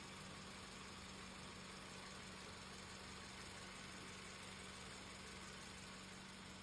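Car engine idling steadily, heard faintly as a constant low hum.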